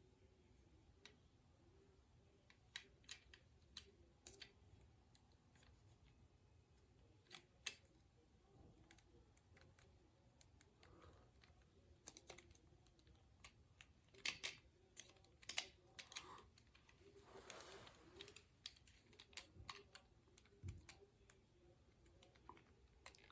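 Faint, irregular clicks and taps of small plastic toy parts being handled and fitted together, with a short scraping rustle about two-thirds of the way through.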